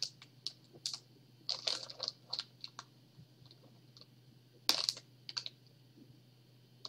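Light clicks and crinkles of plastic being handled: a plastic sleeve holding small bags of diamond-painting drills, with a louder click a little before five seconds in. A low steady hum runs underneath.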